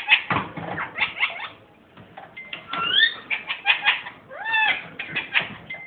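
Pet ringneck parakeet making its laughing noise: quick runs of sharp, chattery notes, broken about three seconds in and again about a second and a half later by a curved, rising call.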